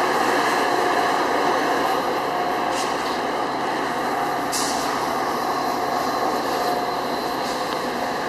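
Metra commuter train rolling through, a steady rumble of wheels and running gear on the rails, with two short hissing bursts, about three and four and a half seconds in.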